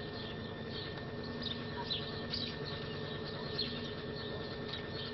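Faint birds chirping, short high falling notes every second or so, over a steady background hum.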